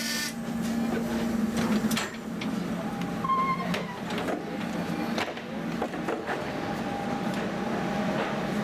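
Tram running: a steady low hum with scattered clicks and knocks, and a brief high tone about three seconds in.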